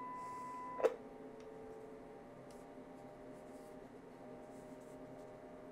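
A CB radio's speaker gives a steady, pure test tone as it receives a strong injected signal. A sharp click cuts the tone off a little under a second in, leaving only a faint hum and faint whine.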